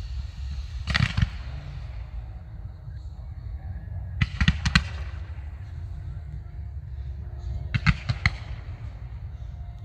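Fireworks display firing: three volleys of sharp bangs, the first about a second in, a second several bangs together around four to five seconds, and a third near eight seconds, over a steady low rumble.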